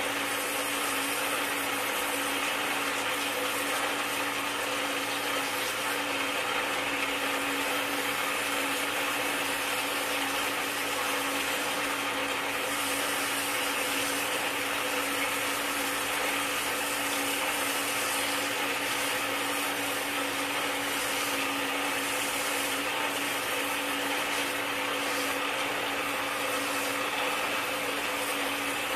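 Water spraying steadily from a hose nozzle and splashing over plant roots and into a net as the roots are washed free of planting medium, with a steady low hum underneath.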